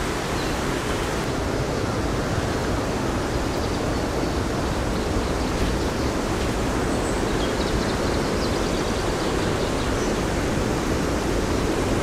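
Fast-flowing river water rushing over rocks near a waterfall: a steady, even rush that does not change.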